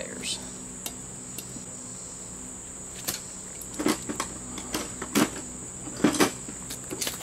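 Scattered sharp metallic clinks and knocks, about eight of them, some in quick pairs, mostly in the second half: hand tools being handled while channel locks are fetched. Underneath is a steady high-pitched insect buzz.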